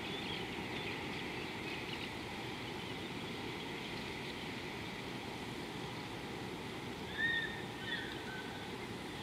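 Outdoor bush ambience: a steady low background hiss with faint scattered bird chirps, and a bird calls twice with short up-and-down whistled notes about seven and eight seconds in.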